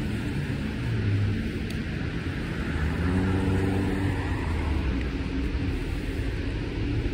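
Street traffic: motor vehicle engines running with a steady low rumble, one engine's hum growing stronger for a couple of seconds around the middle.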